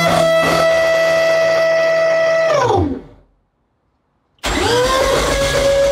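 Car engine being started: a steady whir that spins up, holds for about three seconds, winds down and stops, then about a second later spins up again and keeps going.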